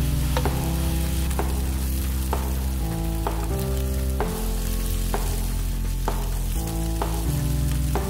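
Meat frying and sizzling in a pan on a portable gas stove, with tongs turning the pieces. Background music with held chords and bass notes plays over it.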